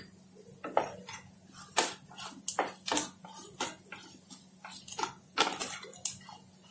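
Spatula scraping and knocking against a steel frying pan as it stirs a dry, crumbly paneer and onion stuffing, in irregular strokes roughly twice a second.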